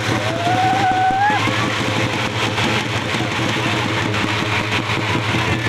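A group of large stick-beaten drums playing fast, dense, continuous rhythms. A voice calls out in a single drawn-out high cry about half a second in.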